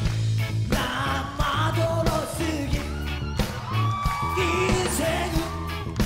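Rock band playing live: a male lead voice singing over electric guitar, bass and a steady drum beat. The singing comes in just under a second in.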